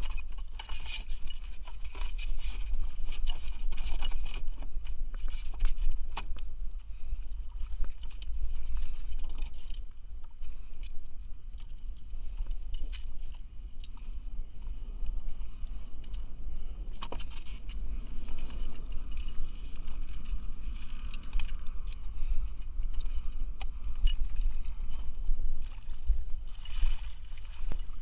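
Wading and handling a wire-mesh crab scoop net in shallow water: irregular water sloshing and splashing with scattered clicks, knocks and rattles from the net and crabs, over a steady low rumble.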